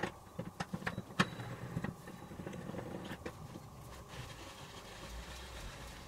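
Sharp metallic clicks and ticks from a threaded steel bearing press being worked, drawing NTN 6806 cartridge bearings home into a bottom bracket. The clicks are closely spaced in the first two seconds, a few fainter ones follow, and a faint low hum comes in near the end.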